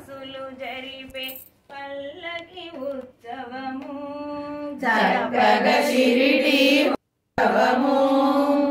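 A group of women singing a Telugu devotional song to Sai Baba, with long held notes. About five seconds in the singing grows louder and fuller, and it cuts out for a moment just after seven seconds.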